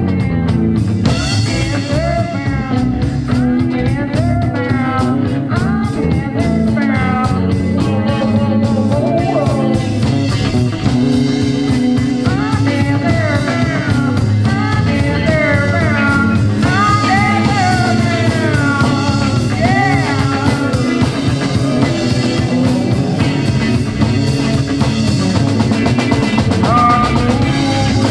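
Psychedelic rock music: a lead line of sliding, wavering notes over a steady bass and drums.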